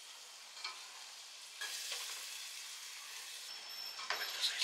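Hot oil and chilli masala sizzling in a pot with yogurt just added; the sizzle grows louder about one and a half seconds in. A wooden spatula starts stirring and scraping the pot near the end.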